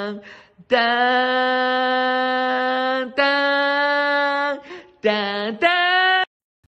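A voice chanting in long held notes, each steady in pitch, ending with two short notes; it stops about six seconds in.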